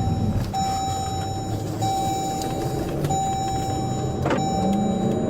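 A steady electronic warning tone, one pitch, sounding about five times in a row. Each tone is held a little over a second with short breaks between. Under it runs a low vehicle engine rumble.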